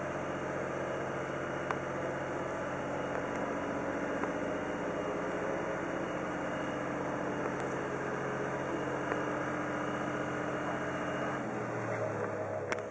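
A truck's engine running steadily, an even drone with no changes in pitch.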